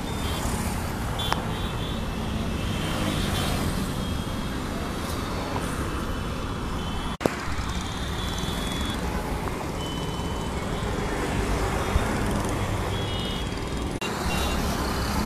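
Road traffic noise: a steady hum of engines and tyres from a jammed road below. Near the end comes handling noise as a hand grips the phone.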